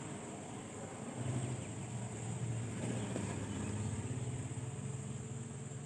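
A low, steady engine hum comes in about a second in and holds, over a faint, steady high-pitched hiss.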